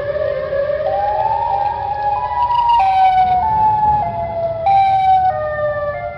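Electronic emergency alert siren: a tone with several overtones climbs in steps from low to high over the first couple of seconds, then steps down and back up unevenly, over a low rumbling noise.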